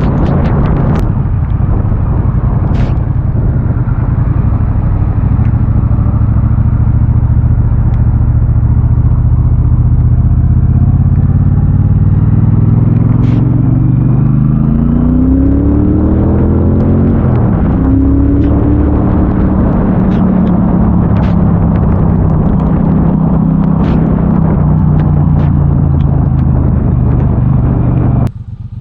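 Triumph Bobber's 1200 cc parallel-twin engine running under way with a steady rushing noise over it. About halfway the engine note rises as it accelerates, drops sharply at a gear change, climbs again and settles to a steady cruise. The sound falls away suddenly near the end.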